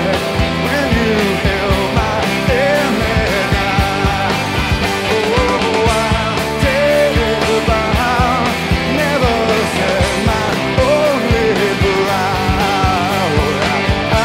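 Rock band playing live in an arena, heard from the crowd: drums, electric guitars and bass, with a male voice singing over them.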